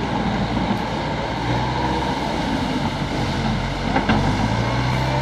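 Diesel engine of a backhoe loader running steadily, its pitch rising a couple of times as it works under load while clearing landslide debris. A single sharp knock comes about four seconds in.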